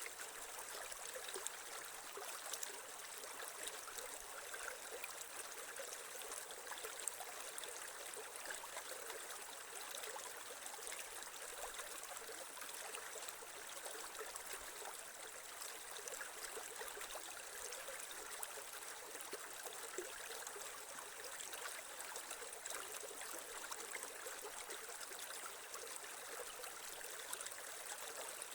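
Creek water flowing and trickling over stones, a steady babble with small splashes.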